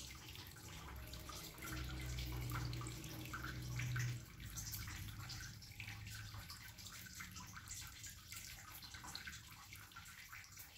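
Faint, steady hiss of background room noise, with a low hum that swells about two seconds in and fades after about four seconds.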